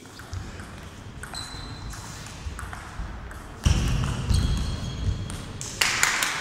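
Table tennis rally: the ball clicking off the paddles and the table in a steady back-and-forth, with a louder hit near the end. A sudden low rumble runs for about a second and a half from a little past halfway.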